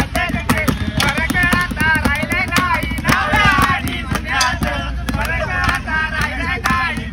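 Wedding banjo party band playing: a fast, wavering amplified banjo melody over a steady run of drum hits.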